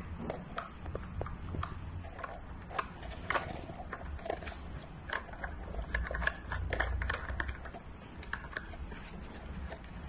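Irregular small clicks and scrapes of hands handling lamp parts: an LED bulb being screwed into the lamp's plastic threaded socket, with the wire shade frame knocking lightly. A low rumble runs underneath.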